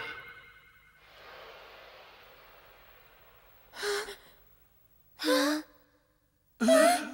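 Three short, startled gasps from cartoon characters, about a second and a half apart, each pitched differently, the last the lowest. About a second in, a faint hiss rises and fades away over two seconds.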